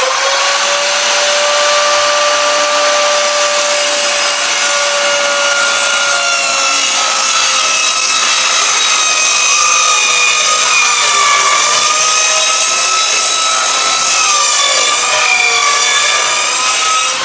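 Corded electric power tool working wood: the motor whines steadily, its pitch sagging and wavering as it bites into the wood, then winds down with a falling whine as it is switched off at the end.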